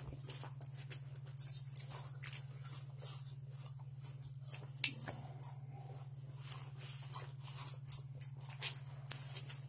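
Spicy chips being crunched and chewed close to the microphone: irregular crisp crackles, several a second, over a steady low hum.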